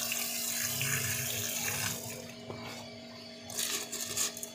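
Water from a hose splashing onto a honeycomb cellulose air-cooler pad, rinsing the acid-loosened dirt out of it. The spray runs for about two seconds and then falls away, with a short splash again near the end, over a faint steady hum.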